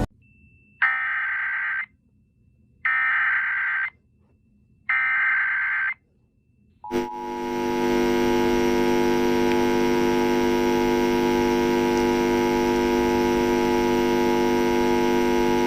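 Emergency Alert System SAME header: three harsh, buzzy digital data bursts of about a second each, with a second's silence between them. About seven seconds in there is a click, and then the steady two-tone EAS attention signal starts and holds on.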